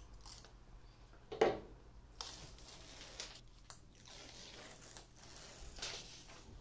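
Utility knife trimming double-sided tape on a table saw fence, with the tape and its backing scratching and crinkling. A sharp click about a second and a half in is the loudest sound.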